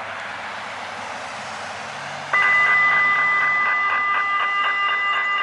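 A steady electronic alert tone, a chord of several fixed high tones, cuts in abruptly about two seconds in and holds at one pitch and level, over a low background hum.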